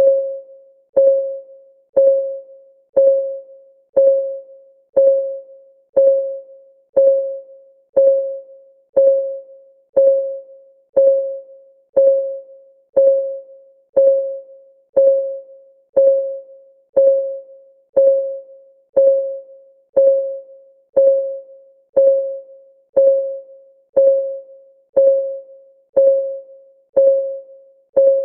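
Countdown timer's clock-ticking sound: one short, pitched tick every second, each ringing briefly and fading before the next.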